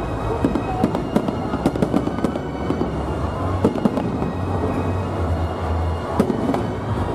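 A fireworks display: aerial shells bursting in quick succession, a dense run of sharp bangs and crackles many times a second.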